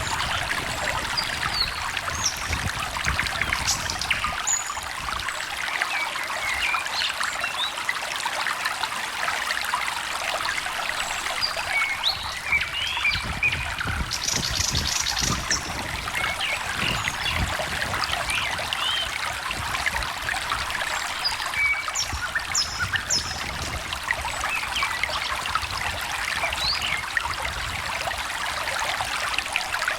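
A small stream trickling and babbling steadily, with songbirds chirping throughout in short high notes and a brief rapid trill about halfway through.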